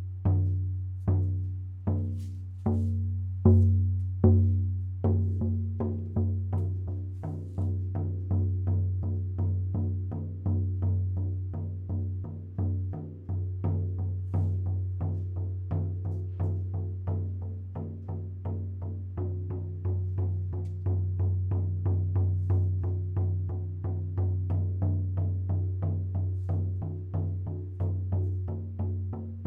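18-inch Hawk Spirit shaman frame drum struck with its felt-free supplied beater in a steady beat, each stroke leaving a low ringing tone. The strokes come slowly, about one a second, for the first few seconds, then speed up to roughly three a second.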